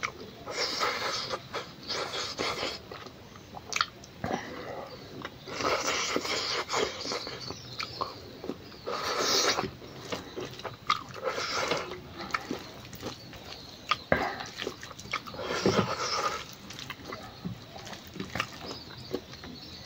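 A person chewing mouthfuls of rice and smoked pork eaten by hand, with irregular mouth noises and occasional sharp clicks.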